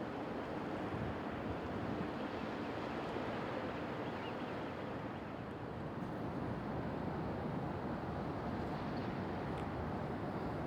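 Steady rushing of wind on the microphone and harbour water, with a tugboat's engine running faintly underneath.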